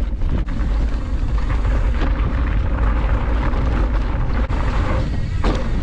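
Wind rumbling on the microphone of a moving mountain bike, over the steady noise of fat plus-size tyres rolling on a rough dirt track, with a few knocks from bumps.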